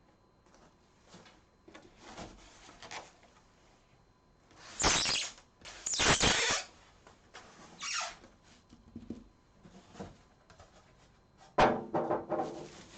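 A PC case and its packaging being handled and pulled out of the cardboard box: a series of rustling and scraping bursts, the loudest about five and six seconds in, then a sharp knock with a brief ring near the end.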